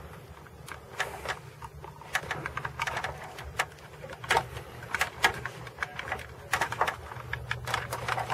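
Irregular sharp clicks, taps and knocks of the Corvette's plastic interior console and trim being pried loose and handled, several a second, over a low steady hum.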